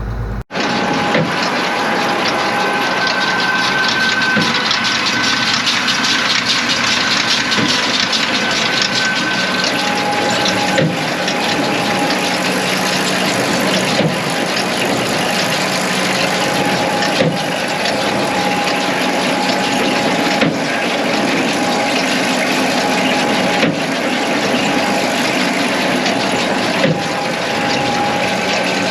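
Tractor and big square baler running steadily while baling, with a short thump about every three seconds.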